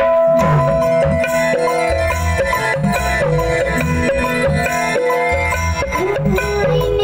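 Marathi lavni music playing loudly: a melody with pitch slides over a steady rhythmic beat.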